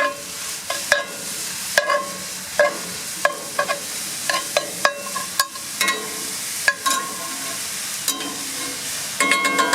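Loose pork sausage sizzling in a cast iron skillet while a metal spatula chops and scrapes it, knocking on the pan roughly once a second with a short ring. A brighter metallic clatter comes near the end.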